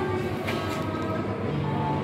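Steady indoor shopping-mall background noise with music playing, some held notes sounding.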